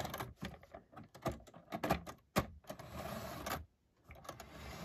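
Irregular light clicks and knocks from plastic 00 gauge model coaches being touched and moved on the track, with stretches of faint steady noise between them.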